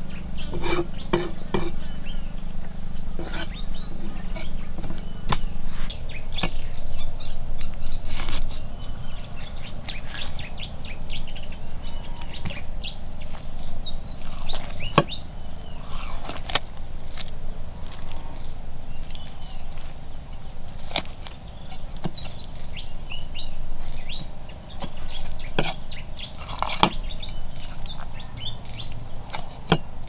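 A heavy cleaver knocking now and then against a wooden chopping block while a whole fish is scaled and cut, about a dozen sharp, irregularly spaced strokes, with birds chirping.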